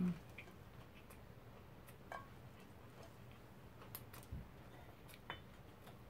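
Quiet eating sounds: a short hummed "mm" at the very start, then a handful of faint, scattered clicks and one small knock from chewing a lettuce wrap and handling the vegetables.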